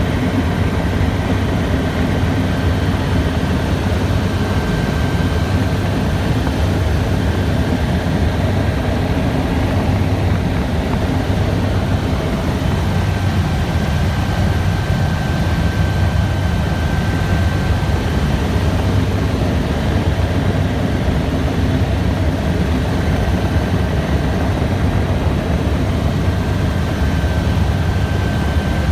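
Helicopter running steadily in flight: a loud, even low drone of rotor and engine, with a faint high whine that comes and goes.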